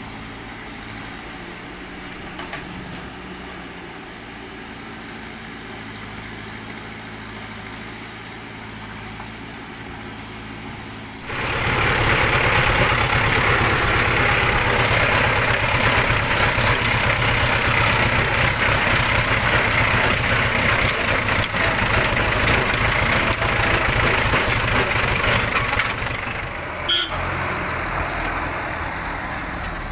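Heavy diesel engine idling steadily. About eleven seconds in it is joined by much louder, rough engine running, which eases down again a few seconds before the end, with one sharp click near the end.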